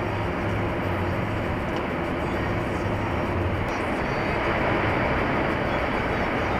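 A car driving at steady speed: continuous road and engine noise with a low hum that swells and fades.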